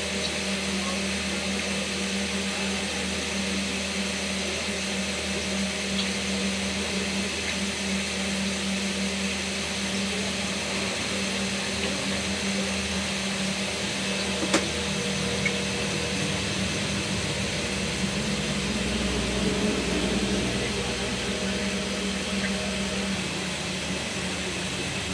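Opened VCR playing a tape: a steady hum with hiss, and one sharp click about halfway through.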